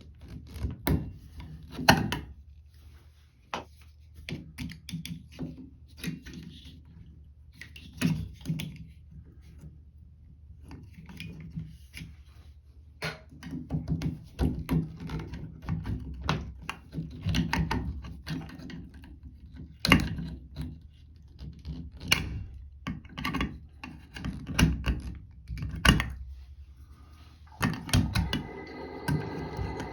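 Screwdriver tip scraping, clicking and knocking against a Moen shower cartridge's retaining clip and the valve body while prying the clip out, in irregular sharp clicks with a few louder knocks.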